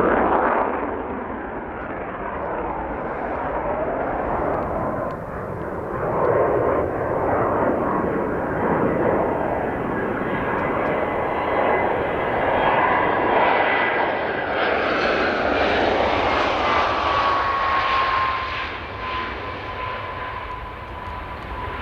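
Panavia Tornado jet, its two RB199 turbofan engines giving a loud, steady rushing jet noise. A thin whine rides on top and slides slightly lower in pitch over the last few seconds.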